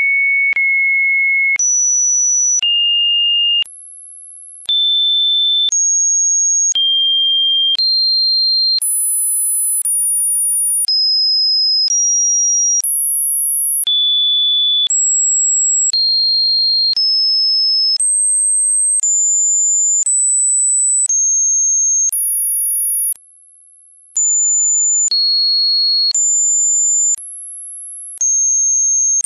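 A string of electronically generated pure sine tones, one after another at about one a second, each held steady and then jumping to a new, unrelated pitch. All the tones are high to very high, with no pauses between them.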